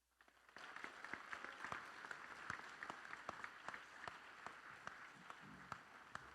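Audience applauding: the clapping starts a moment in, holds steady and tapers off near the end.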